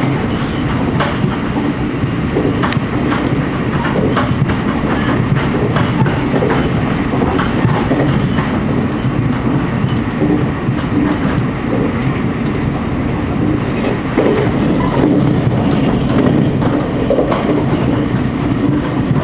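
Taiwan Railway passenger train running along the track, heard from on board: a steady rumble with irregular clicks of the wheels over the rails.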